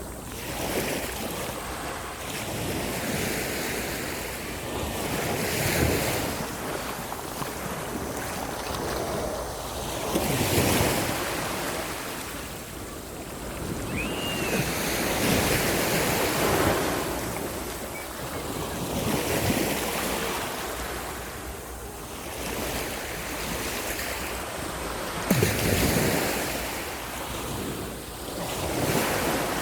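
Sea waves breaking on a beach, each wave surging in and washing back, a new surge every four to five seconds over a constant wash of surf.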